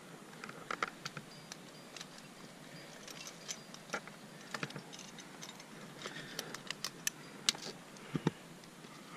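Metal climbing hardware, carabiners and trad protection, clinking and clicking in scattered light metallic clicks as it is handled on the harness rack.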